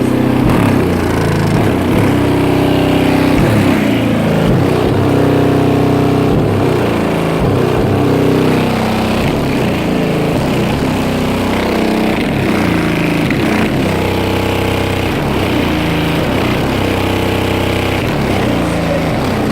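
Bass music played loud through four 15-inch subwoofers driven by a Sound Digital 12K amplifier: a run of deep bass notes that step and slide down in pitch over and over.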